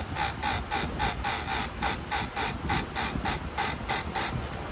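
A file rasping across chainsaw chain teeth in quick even strokes, about four a second, stopping shortly before the end: the chain being sharpened.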